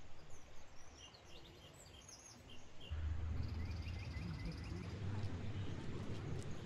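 Small birds chirping in short high calls over a steady low rush of river water, which becomes louder about three seconds in.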